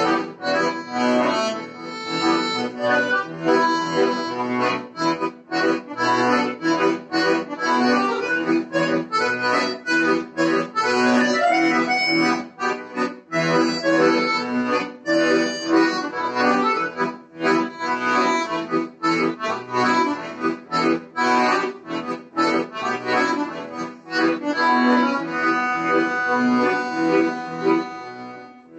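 Chromatic button accordion played solo, a melody in the right hand over evenly repeated bass notes.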